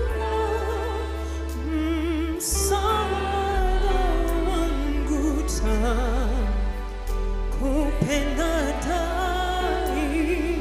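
Church worship song: a woman's solo voice and choir voices singing with wide vibrato, over a steady low accompaniment.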